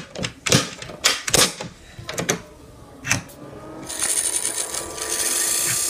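A Nintendo GameCube being handled: about six sharp plastic clicks and knocks over the first three seconds, from its lid and buttons being worked. From about four seconds in, a steady hiss with faint tones slowly rises as the console starts up.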